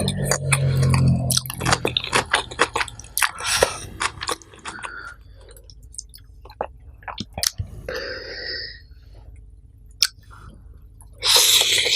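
Close-miked chewing of a mouthful of nasi pecel: wet mouth clicks and smacks come thick at first, then thin out to a few sharp ticks, with a short loud rush of noise near the end.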